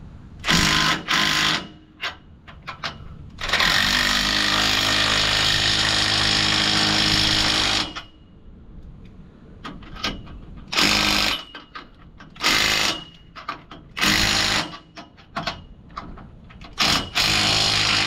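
Impact wrench hammering U-bolt nuts down on a trailer leaf spring in short bursts, with one longer run of about four seconds. The nuts are run down a little at a time so the threads come up even on every bolt.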